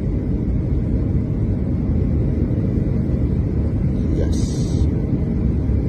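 Steady low rumble of a jet airliner's engines and airflow heard inside the cabin on final approach, with a short hiss about four seconds in.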